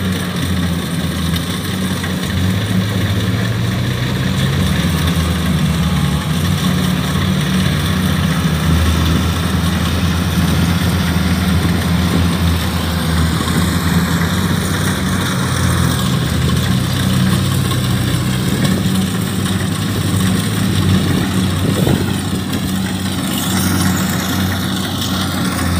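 Kubota DC-70 combine harvester's diesel engine running steadily under load while it cuts and threshes rice, a loud low drone that shifts slightly in pitch now and then.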